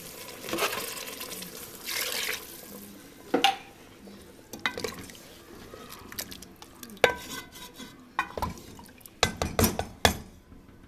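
Wooden spoon stirring a watery chicken curry in a metal pot: liquid sloshing for the first couple of seconds, then the spoon knocking and scraping against the pot, with a quick run of sharp knocks near the end.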